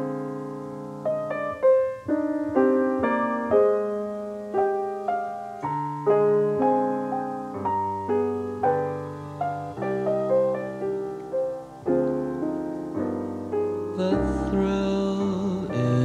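Background music: a piano plays a melody of single struck notes that ring and fade, about one or two a second. Other instruments join about two seconds before the end.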